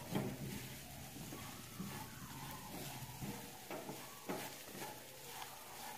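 Silicone spatula scraping and lightly knocking against a nonstick kadai as chopped walnuts and khoya are stirred and fried in ghee. The knocks come at irregular intervals, several times, over a quiet background.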